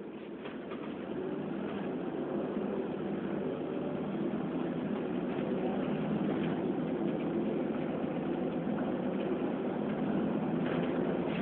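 Volvo B7RLE bus's six-cylinder diesel engine running, heard from inside the passenger saloon, getting louder over the first couple of seconds as the bus pulls away, then holding steady.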